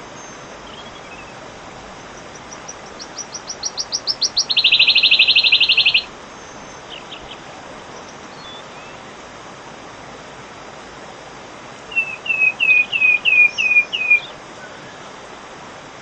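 Wood warbler singing: a run of ticking notes that speeds up into a shivering trill, then near the end a string of about eight falling piping notes. A steady hiss runs underneath.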